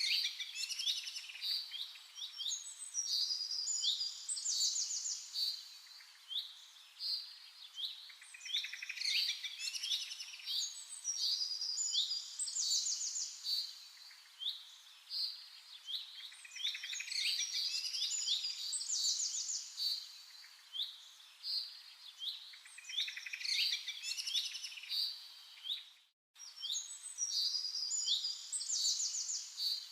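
Birdsong: bursts of quick chirps and trills, the same pattern of calls coming back about every eight seconds, with a brief dropout near the end.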